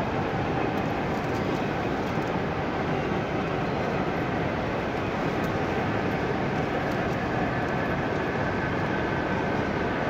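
Steady, even background noise of a busy exhibition hall, with no single sound standing out.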